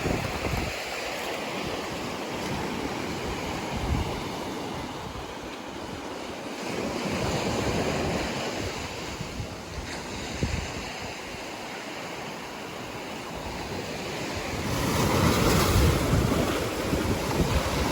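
Sea surf washing ashore, with wind buffeting the microphone in low rumbles. The surf swells about halfway through and grows loudest near the end.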